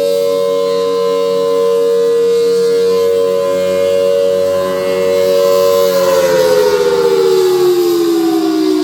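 Federal Signal Thunderbolt 1000T outdoor warning siren sounding its two-note chord at a steady pitch during a test. About six seconds in it begins winding down, both notes falling steadily in pitch.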